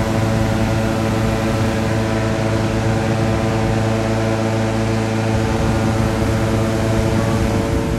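Hot-air balloon being inflated: the inflator fan's small engine running steadily with a strong hum, under the burner firing into the envelope. The low hum drops away near the end.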